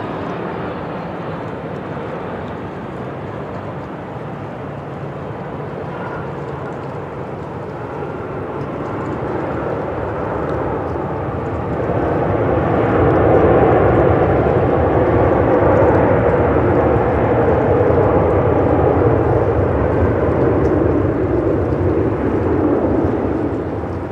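Jet airliner engines: a steady engine noise that grows louder about halfway through, holds for around ten seconds, and starts to fade near the end.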